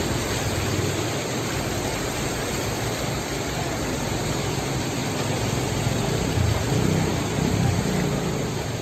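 A vehicle driving slowly through floodwater: its engine running with a low, steady hum under a constant rush of water pushed aside by the vehicle.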